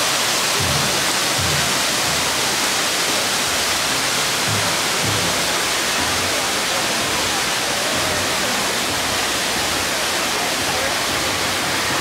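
A steady, loud rushing noise like falling water, with music underneath.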